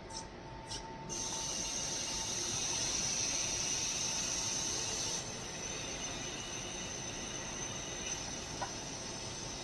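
Linear vibration welding machine running a weld cycle on a car tail lamp: a steady hiss that steps up about a second in and eases back somewhat about five seconds in.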